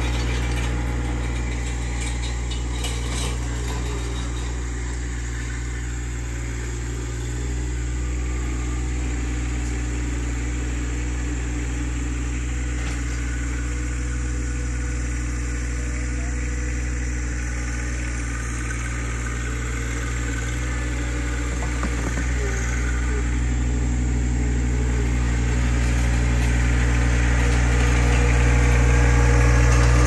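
John Deere sub-compact tractor's three-cylinder diesel engine running steadily under load while pulling a roller crimper, growing louder over the last several seconds as the tractor comes nearer.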